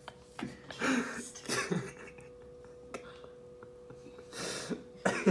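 Several short breathy bursts of a person's voice, the last and longest about four and a half seconds in, over a faint steady hum.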